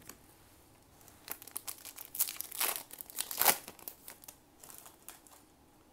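Foil trading-card booster pack crinkling in the hands as it is torn open, a flurry of sharp crackles that is loudest about three and a half seconds in.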